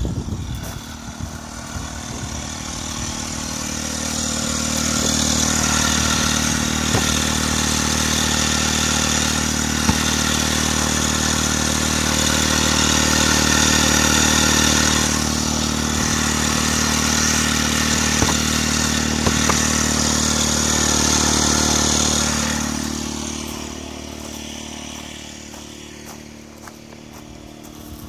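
Outwell Windstorm 12-volt electric tent pump running steadily, a constant motor hum with a hiss over it, as it inflates the air beams of a tent that has not yet reached its set pressure. It grows louder over the first few seconds and fades after about 22 seconds.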